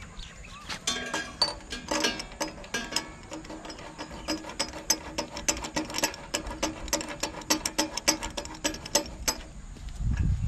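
Spark plug spanner fitting and tightening a new spark plug in a small petrol water-pump engine: metal clicking and ratcheting in quick, uneven succession.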